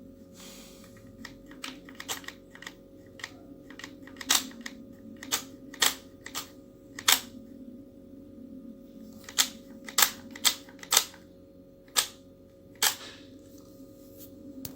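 About a dozen sharp, irregularly spaced clicks and clacks of hard objects, the loudest in the second half, over a steady low hum.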